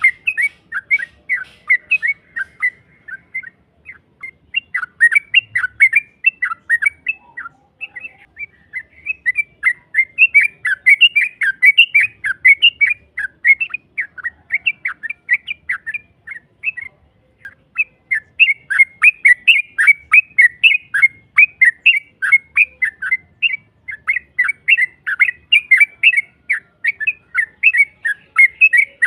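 Yellow-vented bulbul (trucukan) singing a long, rapid run of chattering, bubbling notes, the 'ropel' song, with a few brief pauses.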